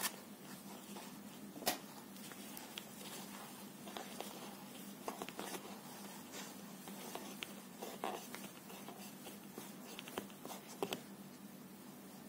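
Faint, scattered clicks and rustles of hands crocheting fine thread with a metal hook over a pinned paper pattern, about a dozen small ticks in all, under a faint steady hum.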